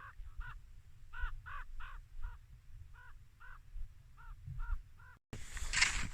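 A crow cawing in quick runs of three or four short harsh caws. Near the end the sound cuts suddenly to a louder rustling noise.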